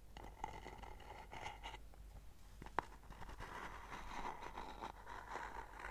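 Fingernails scratching and tapping on the lid of a wooden box, with one sharper tap about three seconds in.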